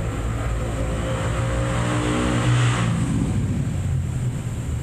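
An engine running, growing louder and sliding lower in pitch to a peak just before three seconds in, then dropping away, over a steady low hum.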